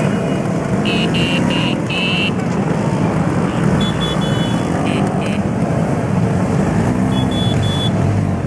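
Several Vespa scooter engines running together as the scooters pull away slowly in a column. Short high-pitched beeps from horns come in a quick run of four about a second in, and again in shorter groups near the middle and near the end.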